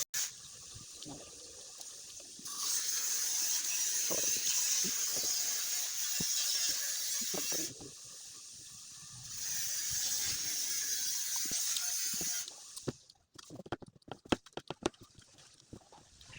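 Close-miked chewing and biting of eggplant: wet mouth clicks and crunches, ending in a quick run of sharp crunching bites. A steady high hiss cuts in and out abruptly behind the chewing.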